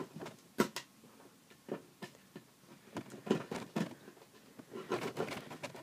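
Knife cutting and scraping into the plastic sleeve of an iPod charger cable: irregular clicks and short scratches in small clusters.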